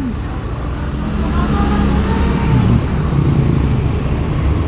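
Motor traffic in a slow-moving jam: engines running with a steady low rumble, and faint brief higher tones partway through.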